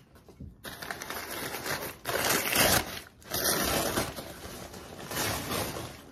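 Brown kraft paper wrapping crinkling and rustling as it is pulled open and crumpled by hand, in several loud bursts, the loudest about two to four seconds in.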